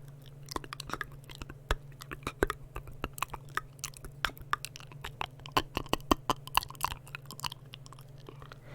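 Close-miked ASMR mouth sounds: many quick, irregular wet clicks and smacks of lips and tongue, loudest a little past the middle and thinning out near the end, over a steady low hum.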